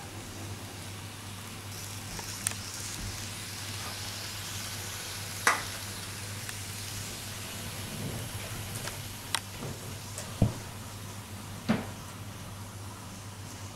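Model train running on sectional track: a steady low hum and hiss, broken by a few short sharp clicks.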